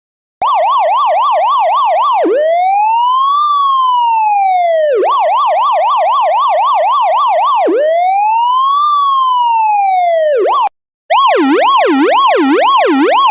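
Police car electronic siren switching between a fast yelp, about four sweeps a second, and a slow wail that rises and falls over nearly three seconds, twice over. After a brief gap near the end it changes to a lower, slower warble.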